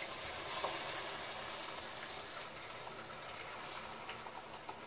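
Water poured from a plastic pitcher into a hot pan of frying chicken strips: a steady hiss that slowly fades.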